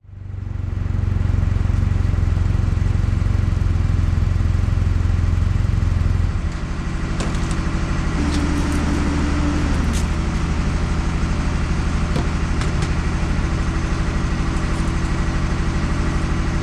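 A vehicle engine running steadily, its note and level shifting slightly about six seconds in.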